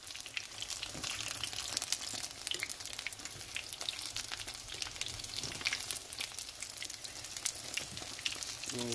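Flour dumplings shallow-frying in hot oil in a non-stick pan: a steady sizzle full of quick crackles and pops.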